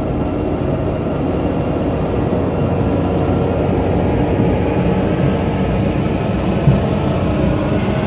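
Mitsubishi Pajero's engine and tyres running in a steady drone as it climbs a rough dirt trail, still in two-wheel drive, heard from inside the cab.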